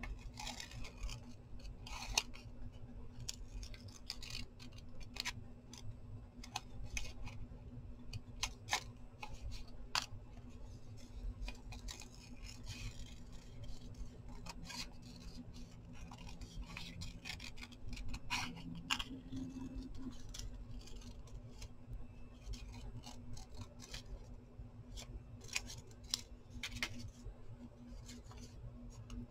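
Small craft scissors snipping through brown paper in short, irregular cuts, as a doodled shape is cut out around its outline.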